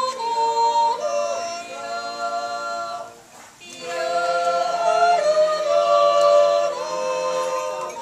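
Background music of singing voices holding long notes that change pitch in steps, with a brief pause about three seconds in.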